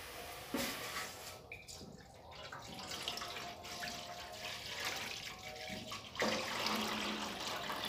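Water poured from a plastic jug into a metal cooking pot, splashing in spells and heaviest over the last two seconds.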